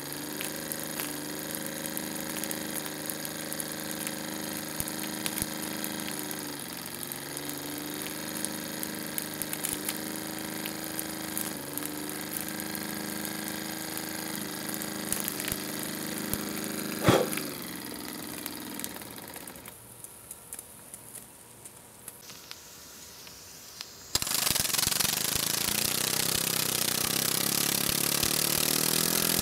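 Microcosm M22 miniature oscillating-cylinder steam engine running on steam from its small boiler: a steady mechanical buzz whose pitch wavers, with one sharp click a little past halfway. It then goes quieter, and near the end a much louder steady hiss sets in suddenly.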